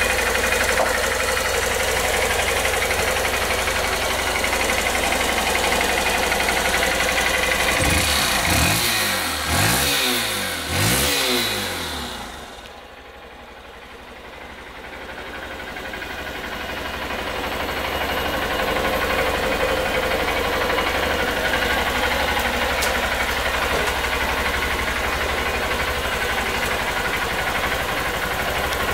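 Honda CB125F's single-cylinder four-stroke engine idling steadily, blipped three times in quick revs about eight seconds in. After the third rev the sound drops away and slowly builds back to the steady idle.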